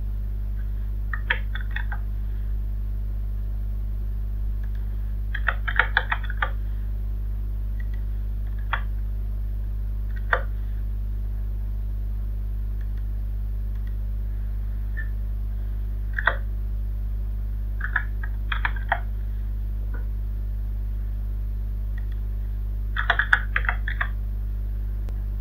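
Computer keyboard typing in short bursts of keystrokes, with a few single key clicks between the bursts, over a steady low hum.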